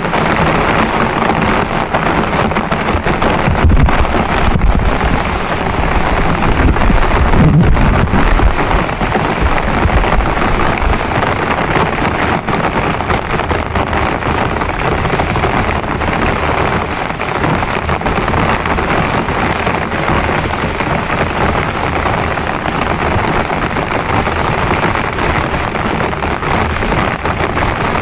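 Heavy rain falling steadily, a dense hiss of drops. A low rumble swells about four to eight seconds in.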